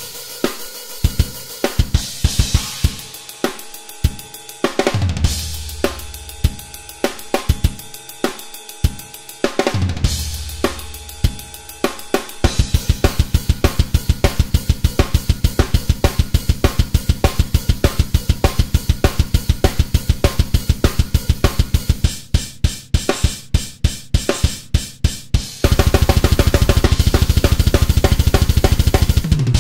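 Programmed death-metal drum kit playing on its own: at first a sparser beat with cymbal crashes. About twelve seconds in it switches to rapid, unbroken double bass drum under snare and cymbals, and near the end an even denser kick run.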